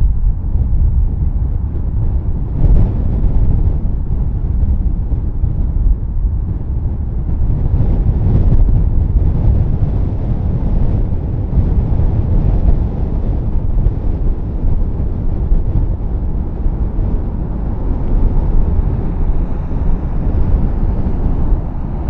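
Strong gusty wind buffeting the microphone: a loud, uneven low rumble that swells and drops with the gusts.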